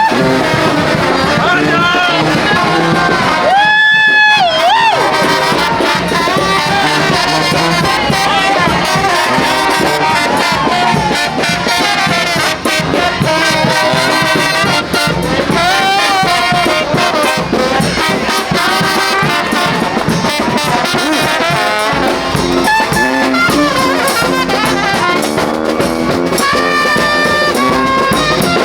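A brass band playing, with trumpets and trombones carrying the tune. There is a long held note about four seconds in.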